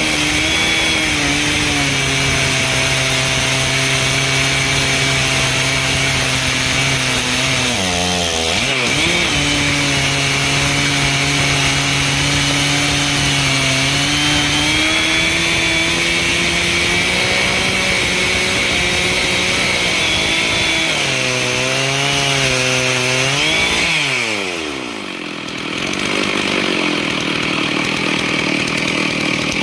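Chainsaw engine running hard as it rips through a log on a homemade chainsaw mill, its pitch wavering under load. About eight seconds in the pitch dips briefly and recovers. Near the end the revs drop away sharply, then pick up again.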